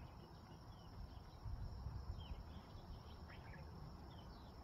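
Faint mountaintop ambience: scattered short bird chirps over a steady high insect drone, with a low rumble of wind on the microphone that swells about a second and a half in.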